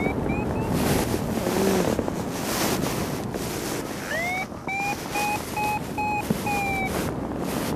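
Airflow rushing over the microphone of a paraglider in flight, with a variometer beeping: a short rising chirp at the start, then from about four seconds in a run of about three beeps a second that rise in pitch at first and drop at the end. The beeping is the vario's climb tone, the sign of the glider rising in lift.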